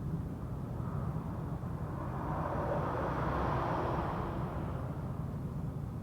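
A vehicle passing by: its noise swells for a couple of seconds, peaks, then fades, over a steady low rumble.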